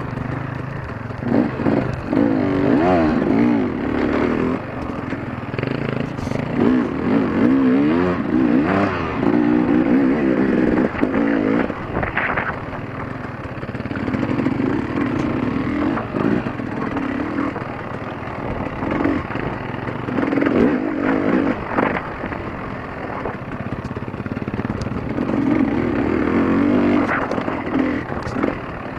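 Off-road dirt bike engine heard close up from the bike being ridden, revving up and down in repeated bursts over rough trail. Scattered knocks and clatter from the bike run between the revs.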